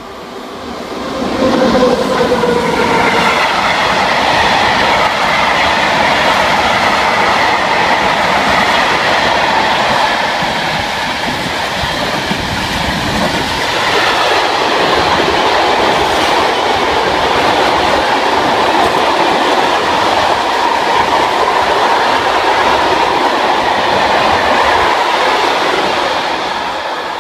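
Freight train passing at speed, hauled by SNCF BB 7300 electric locomotives working in multiple. The sound swells over the first two seconds as the locomotives arrive, then stays loud and steady as a long string of hopper and tank wagons rolls past with wheels clattering over the rails, easing off near the end.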